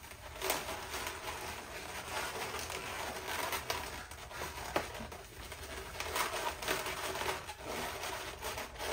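260Q latex twisting balloons being handled and twisted into shape, with irregular rubbing and squeaking of latex against latex.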